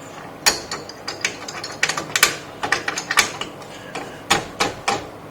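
A computer part being fitted into a PC case: a dozen or so sharp, irregular clicks and knocks as it is pushed and seated into place.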